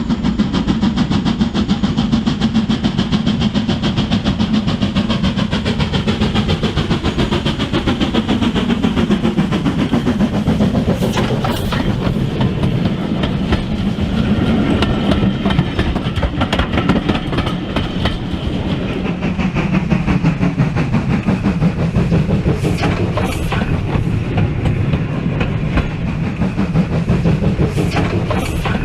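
OO gauge model train running on the layout's track: a steady rumble of wheels with rapid fine clicking over the rail joints, and a motor whine that slides down and back up in pitch through the middle.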